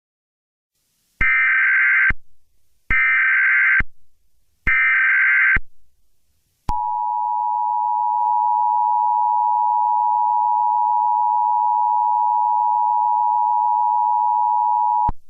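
Emergency Alert System SAME header: three bursts of rapid warbling data tones, each just under a second long and about a second apart, followed by the EAS two-tone attention signal, a loud steady dual tone held for about eight seconds that cuts off sharply. These are the signals that open an EAS alert.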